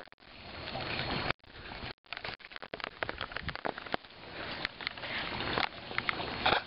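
An English springer spaniel sniffing and snuffling right at the microphone: a crackly rush of breath noise with sharp clicks. It cuts off abruptly three times, about a second and a half in, at two seconds, and right at the end, and builds up again after each break.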